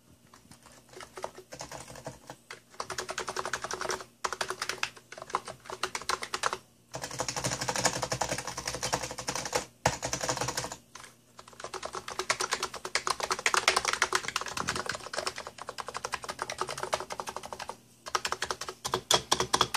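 Fast typing on a Hansung electrostatic capacitive (non-contact) keyboard, the keystrokes clattering in runs of several seconds with short pauses between them. It is the keystroke noise that the owner finds grating.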